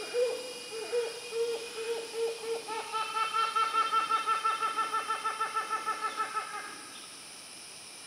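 Helmeted hornbill calling: spaced hoots that speed up into a fast run of notes, about five a second, stopping abruptly near the end. This is the accelerating, laugh-like climax of the species' call.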